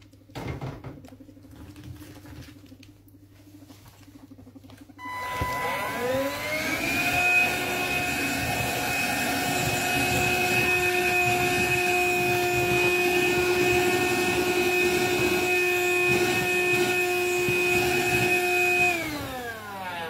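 Handheld cordless vacuum cleaner switched on about five seconds in, its motor whine rising to a steady pitch as it runs, then falling away as it is switched off near the end.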